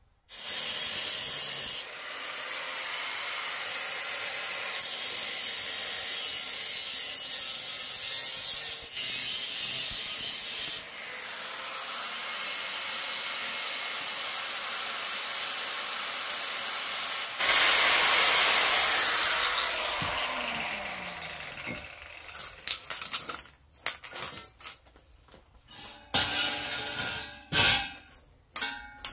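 Handheld angle grinder cutting through metal bars, running steadily for about twenty seconds with a louder stretch near the end, then winding down with a falling whine. After it come scattered clanks and clinks of the cut metal bars being set down on concrete.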